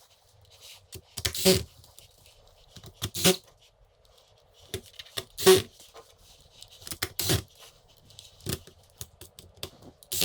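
Small screws being driven into a laptop's plastic chassis with a screwdriver: scattered clicks and taps of metal tool and screws on plastic, the loudest about five and a half seconds in.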